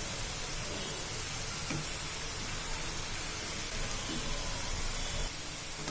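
Strips of wheat-flour dough deep-frying in hot oil: a steady sizzling hiss.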